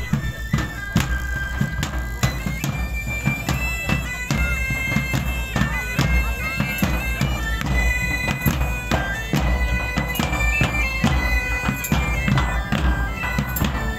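Bagpipe playing a folk melody in long held notes, with large drums beating a steady rhythm under it.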